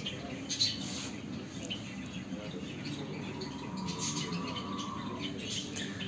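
Caged zebra finches chirping: short, high chirps scattered throughout, over a low murmur of background voices.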